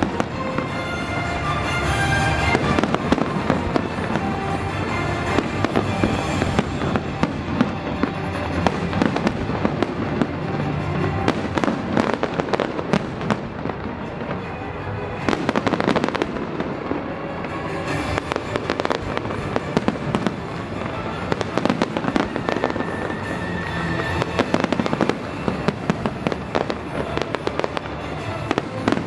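Aerial firework shells bursting and crackling one after another in a continuous display, with music playing underneath.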